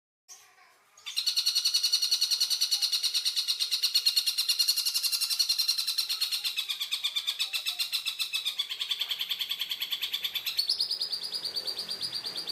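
Tengkek buto bird calling in a fast, harsh rattling trill of rapidly repeated notes, with a shift in tone about ten seconds in.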